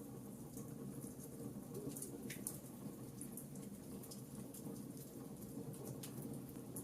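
Fireplace crackling: an irregular scatter of small, sharp pops and ticks over a steady low rumble of the burning fire.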